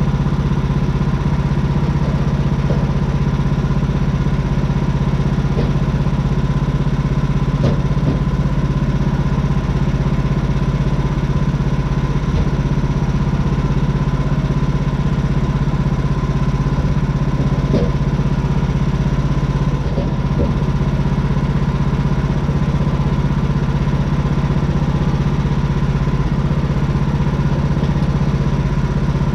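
Gas engine of a Woodland Mills portable bandsaw sawmill running steadily at speed, with the band blade sawing through a timber to cut a tenon.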